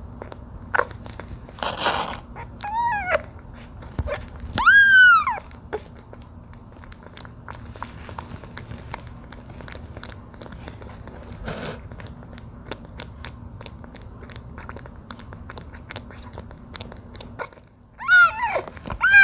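Newborn kitten suckling at a bottle nipple, with a steady run of small wet clicks, and mewing: two short mews about three and five seconds in and several more near the end. The mews are a hungry kitten's cries when it fails to get milk from the bottle.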